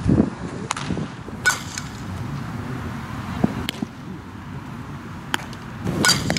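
A few sharp cracks of a softball hitting bat or glove during fielding practice, the loudest about a second and a half in and near the end, over wind rumbling on the microphone.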